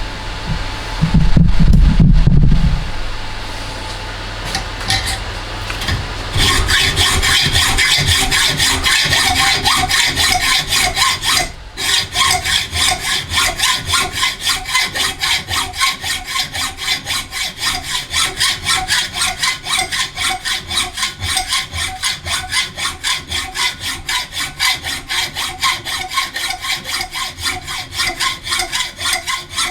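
A hacksaw cutting through bar stock with fast, even strokes, about two or three a second, as a length is cut off to make a bush. The sawing starts about six seconds in and pauses briefly near twelve seconds, after a short low knock of handling at the start.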